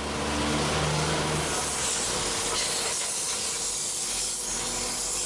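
Loud, steady hiss of a pressurised spray jet, holding for several seconds.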